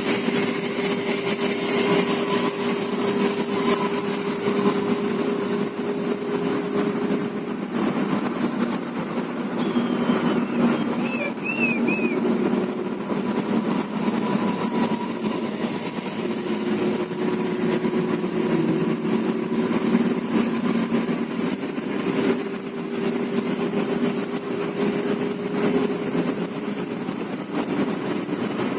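Intercity bus running on the road: a steady engine and drivetrain hum over road noise, with the higher part of the hum dropping out for several seconds midway and then returning.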